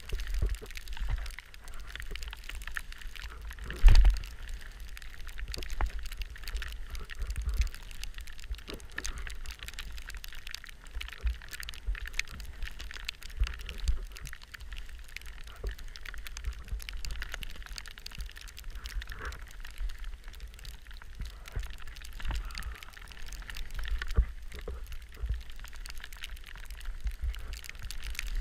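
Skis hissing and scraping over chopped-up snow on a downhill run, with wind buffeting the body-mounted camera's microphone as a low rumble. A loud thump about four seconds in.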